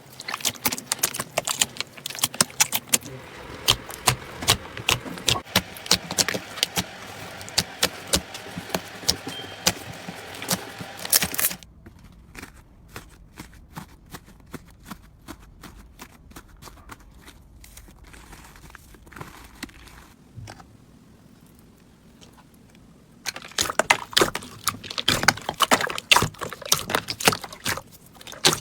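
Slime being worked, giving rapid sticky crackles, pops and clicks. It goes much quieter, with only scattered clicks, from about twelve seconds in, then turns dense and loud again near the end.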